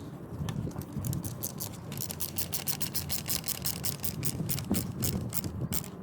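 Screwdriver driving a screw into the mirror's plastic light housing, clicking rapidly, about six clicks a second, starting about a second in and stopping near the end.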